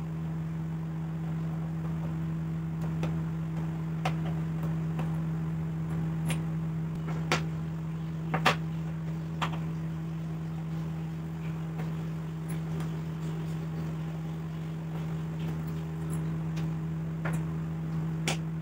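Small metal hand-planer parts (screws, a blade clamp plate and the blade) clicking and tapping down onto a wooden tabletop while a screwdriver works the blade-assembly screws loose. The clicks are sharp and scattered, with a cluster about halfway through, over a steady low hum.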